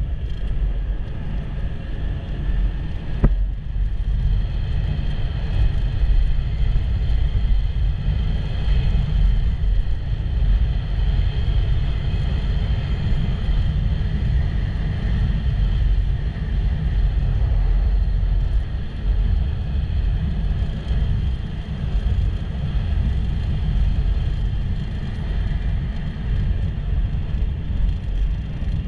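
Steady low rumble of a moving vehicle running on, with a single sharp click about three seconds in.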